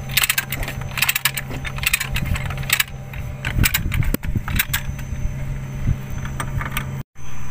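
Chain lever hoist being ratcheted to lift the worm wheel out of a motor grader's circle rotation gearbox: a quick run of sharp metallic clicks and chain rattle over a steady low engine hum. The sound breaks off suddenly for a moment near the end.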